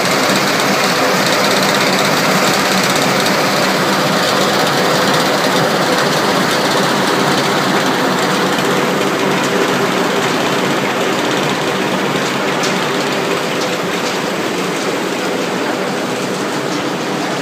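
Small feed pellet line running: the pellet mill and a belt-driven electric conveyor make a steady, loud mechanical din with a faint hum running through it.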